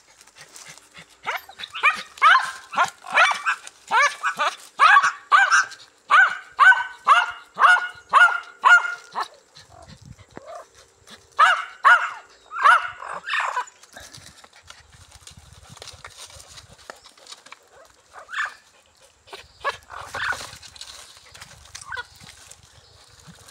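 Dog barking in quick repeated barks, about two a second, for several seconds. After a short pause come a few more, and then scattered single barks.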